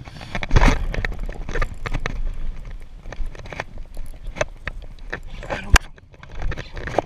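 Handling noise: rubbing, rustling and irregular knocks of a hand and clothing against the camera close to its microphone as it is moved and tilted, with one sharp click a little before six seconds in.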